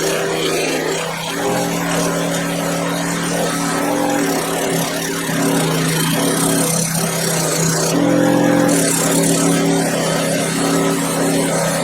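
Electric polishing wheel running steadily while a chrome ratchet is buffed on it, a motor hum with a hiss over it. The hum shifts in pitch about a second in and again about two-thirds of the way through.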